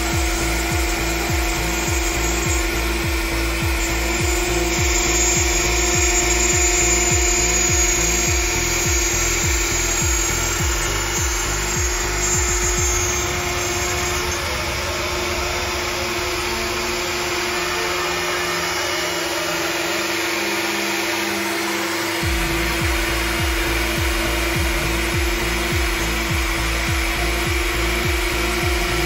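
Makita 700C router, used as a CNC spindle, running at a steady speed with a steady whine while its bit mills a sheet, the cutting noise changing as the bit moves across the work.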